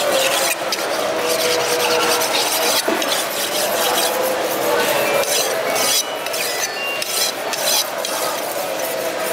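Large curved fish-cutting knife being sharpened on a whetstone, the blade rasping across the stone in repeated strokes.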